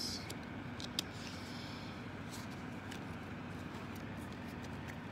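Uno cards being handled: a few scattered light clicks and taps, the sharpest about a second in, over a steady low background hum.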